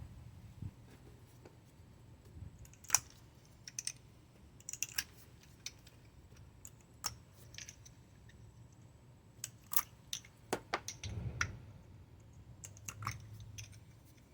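Scattered sharp clicks and taps, some in quick runs of two or three, over a faint low hum: small hard objects, such as tools, being handled.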